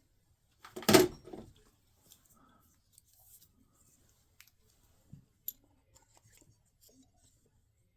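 Small clicks and snips of hand tools and wiring being handled, with one louder, brief sound about a second in.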